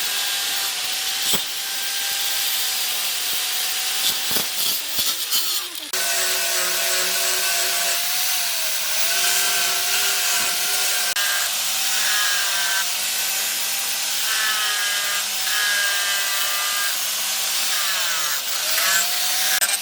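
Handheld electric power tool abrading the knife: a steady hissing grind over a motor whine that wavers and sags in pitch when it is pressed into the work, around four seconds in and again near the end.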